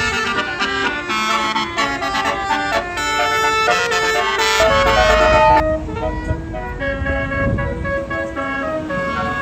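Tour bus's Basuri telolet horn playing a multi-note melody, several horn tones sounding together and stepping from note to note, with the bus engine rumbling underneath, heaviest about halfway through.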